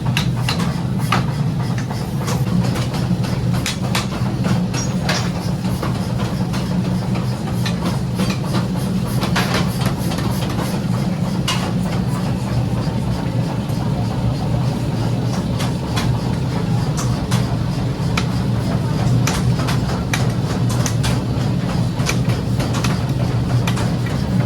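A machine running with a steady low hum, with scattered irregular clicks and knocks over it.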